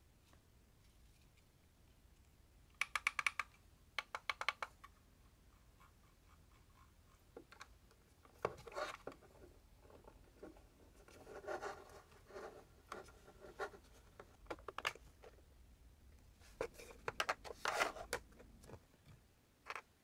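Small parts being handled in a 3D-printed plastic case: two quick runs of rapid clicks early on, then scattered knocks, scraping and rubbing, and another burst of clicks near the end. The sounds are faint.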